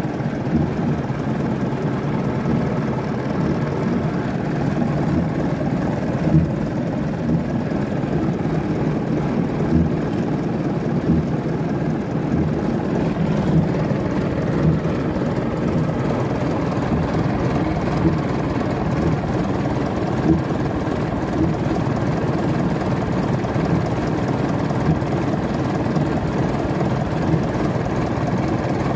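1962 Nuffield 460 four-cylinder diesel tractor engine running steadily, heard from the driver's seat.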